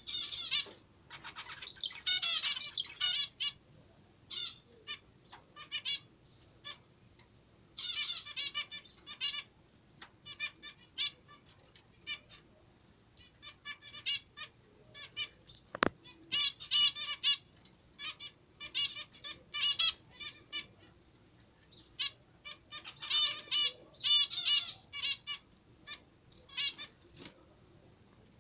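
Caged zebra finches calling and singing in repeated short bursts of notes throughout, with a single sharp click about halfway through.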